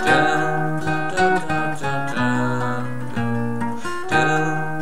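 Background music: an instrumental passage of a song on acoustic guitar, with no singing, the riff repeating about every two seconds.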